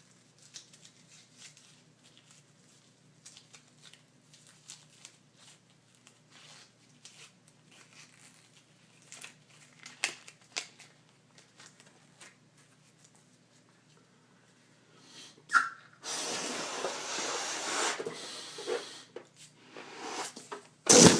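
Faint rustling and clicks of hands handling a 9-inch latex party balloon. Then about five seconds of uneven breathy blowing as the balloon is blown up. It ends in a sudden loud rush of air just before the end as the balloon is let go.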